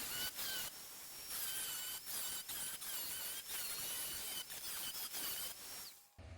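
A high-speed power cutting tool whining and hissing as it cuts rusted sheet metal out of a car body panel, its high pitch wavering as it takes the load, with brief breaks; it stops about six seconds in.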